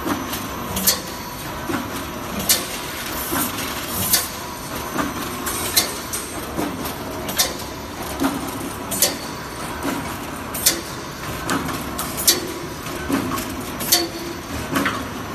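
Automatic wire mesh panel welding machine running in cycle, a sharp clack about every second and a half with lighter clicks between, over a steady hum.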